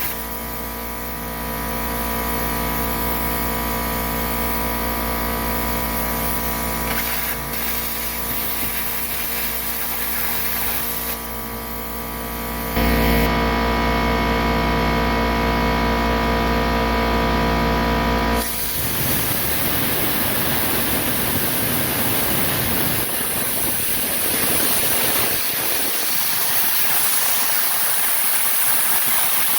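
Plasma cutter in use: a steady buzzing hum of many tones, stepping louder about 13 seconds in, then changing about 18 seconds in to an even rushing hiss of air.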